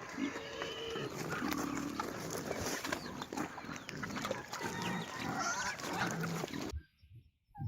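Farm animals calling over one another in many short, overlapping calls, which cut off suddenly near the end.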